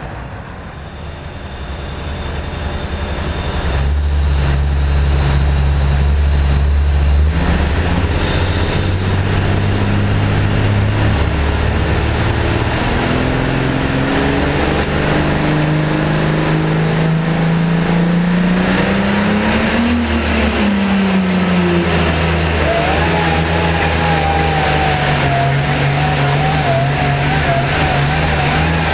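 Super Farm pulling tractor's turbocharged diesel engine running hard, heard from on board. It gets louder about four seconds in, and its pitch climbs slowly to a peak about two-thirds through, then drops back and holds steady. A wavering high whistle sits over the last few seconds.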